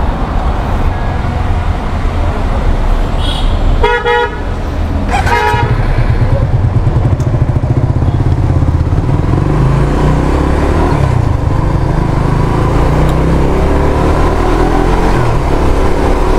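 Motorcycle engine running amid road traffic, with two short vehicle-horn toots about four and five seconds in. The engine note settles into a steadier run from about six seconds in.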